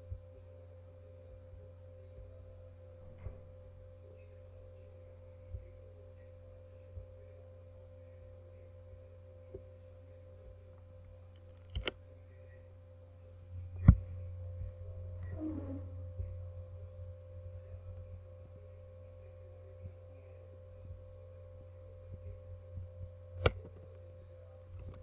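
Steady electrical hum of a desktop recording setup, with a higher steady tone over it. A handful of short sharp clicks break it, typical of mouse clicks while placing points in a drawing. The loudest click comes about fourteen seconds in.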